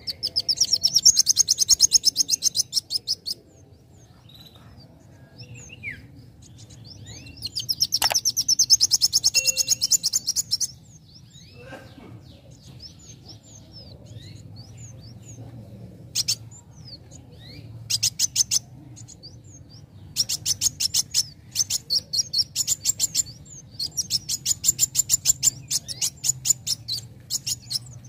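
Young male sunbird, the 'kowul' of Indonesian bird keepers, singing: bouts of fast, high-pitched rattling trills of rapid repeated notes, broken by short pauses and scattered single chirps.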